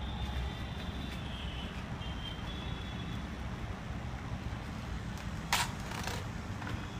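Thin plastic cover crinkling as it is pressed and smoothed over a glass bowl, with two sharp crackles near the end, over a steady low background hum.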